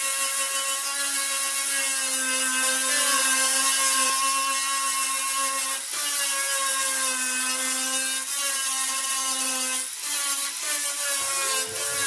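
Electric angle grinder running at a steady high whine as its disc grinds the steel rear body panel, its pitch sagging briefly a few times when it is pressed into the metal.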